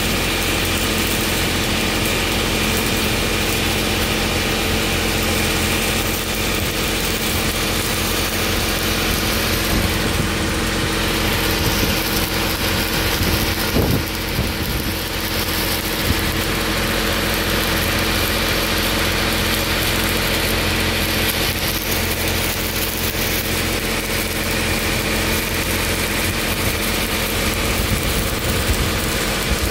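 Stick (SMAW) welding arc crackling and hissing steadily while running a fill pass on a 4-inch steel pipe, over the steady hum of an engine running.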